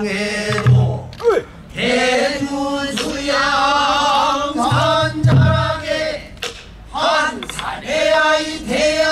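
A male pansori singer sings a danga, the short song that opens a pansori, in long held notes that waver. Low thumps come underneath three times.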